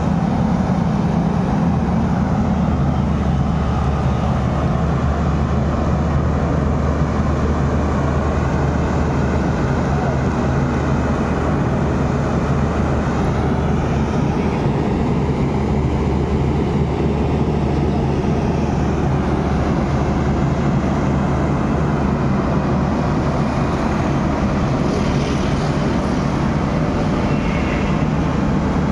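Caterpillar 320D hydraulic excavator's diesel engine running steadily under load as the machine drives itself up onto a flatbed trailer, with a faint whine rising and falling in pitch midway.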